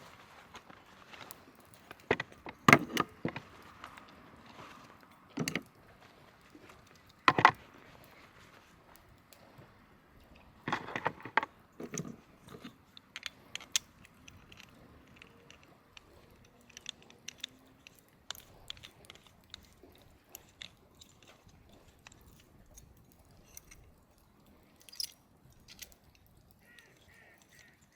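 Camp food preparation: scattered knocks, clicks and rustles of cooking gear and food being handled. There are several louder knocks in the first twelve seconds, then fainter ticks.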